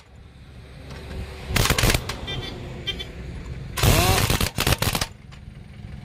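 Pneumatic impact wrench hammering on a truck's wheel nuts in two bursts of about a second each, a second and a half in and again about four seconds in. Each burst opens with a brief rising whine as the tool spins up.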